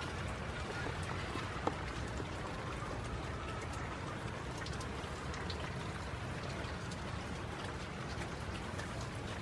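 Steady rain falling, with many small drops tapping close by and one sharper tap about two seconds in.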